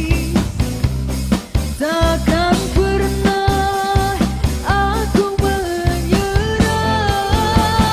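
A woman singing an Indonesian pop ballad live, holding long notes, over strummed acoustic guitar and a steady percussion beat.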